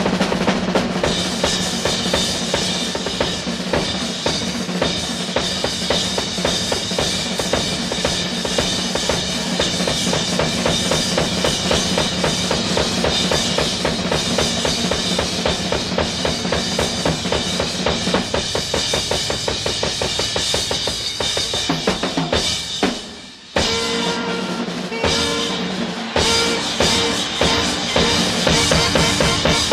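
Jazz drum kit solo: fast, dense strokes on the drums. The playing drops off for a moment about three-quarters of the way through, then picks up again.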